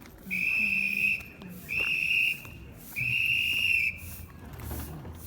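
A whistle blown three times in short, steady, high blasts, each lasting under a second.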